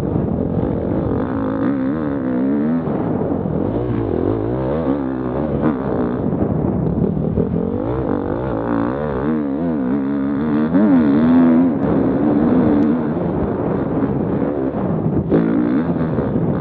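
Enduro motorcycle engine, revving up and down continually as the rider works the throttle across a rough grass track.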